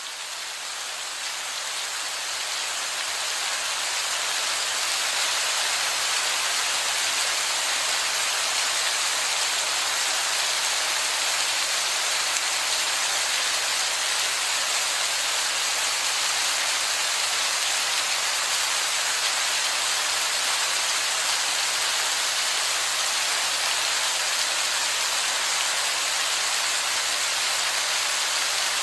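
Heavy falling water pouring and splashing onto rock in a steady, dense rain-like hiss, swelling up over the first few seconds and then holding even.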